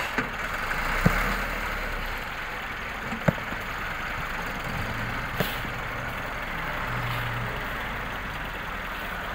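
Tractor engine running steadily while its front loader works, with four sharp knocks in the first half.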